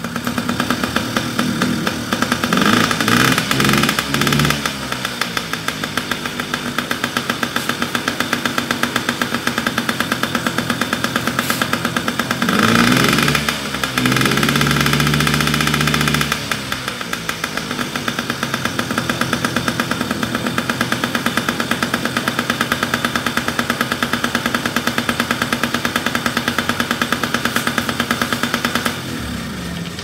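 Yamaha PW50's 49cc two-stroke single-cylinder engine running at idle with a steady pulsing beat, revved up and back down twice, then shut off near the end.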